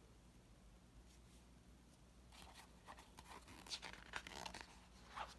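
Faint rustling and crackling of a picture book's paper pages being handled and smoothed by hand: a cluster of small scrapes and crinkles starting a couple of seconds in, after near silence.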